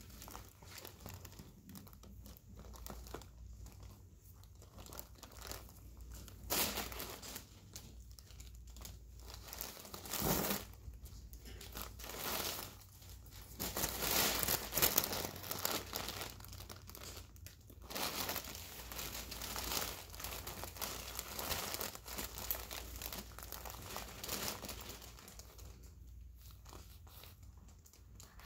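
Paper crinkling and rustling in irregular bursts, loudest about fourteen to fifteen seconds in.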